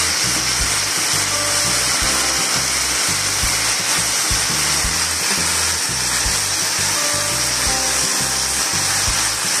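Background music with a rhythmic bass line over a steady hiss of beef strips sizzling in a hot pan.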